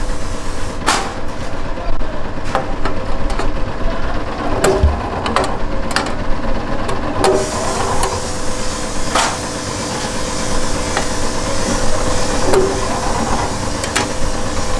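Motor-driven punch press running with a steady hum, its punch striking a steel sheet in sharp metallic knocks every second or two.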